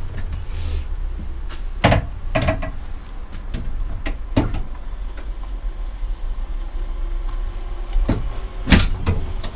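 Metal clunks and knocks of a steel double-bench swivel seat console being set down and shifted into place on a van's seat base. Sharp knocks come about two seconds in, again at about four and a half seconds, and in a quick cluster near the end, over a low steady rumble.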